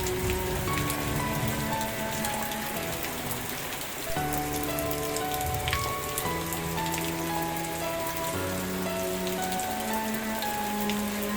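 Steady rain with scattered drop ticks, under slow, soft music of held notes that change pitch about once a second.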